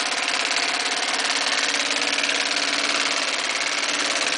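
Consew 327RB-1 industrial sewing machine running steadily at speed, stitching through fabric with a rapid, even rhythm, then stopping abruptly at the end.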